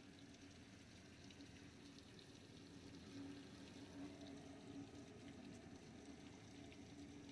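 Heavy monsoon rain falling steadily, heard faintly, with scattered ticks of single drops striking close by.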